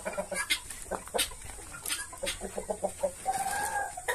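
Chickens clucking in a string of short calls, with a few sharp clicks. One longer drawn-out call comes near the end.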